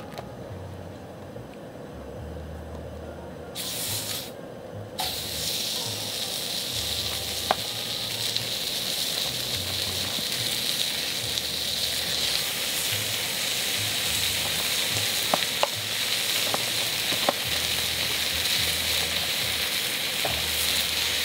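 Strips of pork belly sizzling on a hot round steel griddle pan. The sizzle starts a few seconds in as the first strip goes on and grows louder as more strips are added, with a few sharp clicks along the way.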